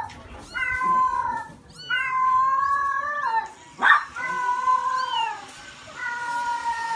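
Kittens mewing: a series of long, drawn-out mews, one after another with short gaps. A brief loud sharp sound comes about four seconds in.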